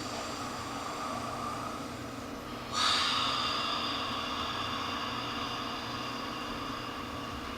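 A group of voices improvising together in a song circle, holding long sustained tones. About three seconds in, a bright ringing tone starts suddenly and slowly fades.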